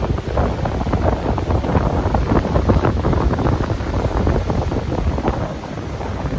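Strong wind gusting and buffeting the microphone, over the rush of high surf.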